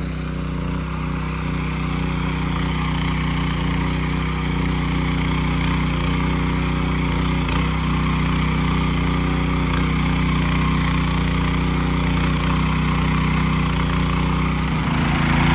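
Walk-behind motor tiller (rotary cultivator) engine running steadily under load as its tines churn the garden soil.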